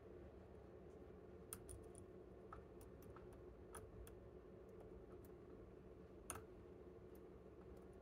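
Faint, scattered small metallic clicks of a dimple flag pick working the pins inside a TESA TK100 dimple lock under tension, one sharper click about two-thirds of the way in, over a faint steady hum.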